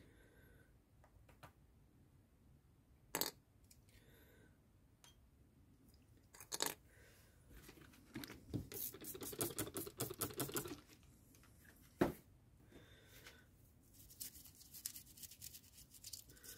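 Toothbrush scrubbing the small parts of a motorcycle handlebar switch, with a run of quick brushing strokes in the middle and lighter brushing near the end. Three sharp clicks of small parts being handled and knocked together come between the strokes.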